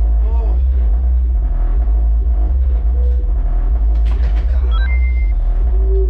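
Volkswagen Saveiro Cross car sound system playing a funk beat at full volume, heard from inside a bedroom: mostly a steady, heavy bass boom with little of the rest of the music coming through.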